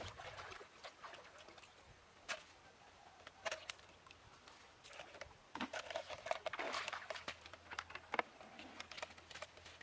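Feet splashing and stepping through a shallow, pebbly stream: irregular splashes of water and scattered clatters of stones, busiest in the second half.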